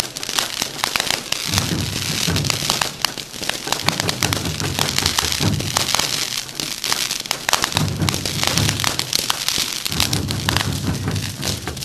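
Ground fireworks going off: spark fountains hissing continuously, with a dense, irregular run of sharp pops and cracks from roman candles and crackling stars.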